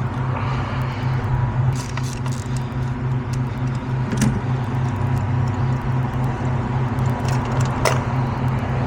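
A steady, low pulsing machine hum, with a few sharp clicks of hand tools as a spark plug is loosened and pulled from the engine.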